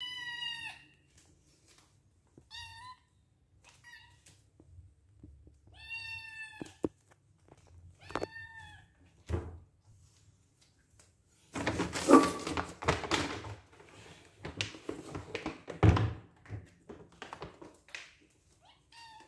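Kitten meowing for food: about five high-pitched cries in the first nine seconds. Then several seconds of rattling and rustling with knocks, the loudest a thunk about sixteen seconds in, and one more short meow near the end.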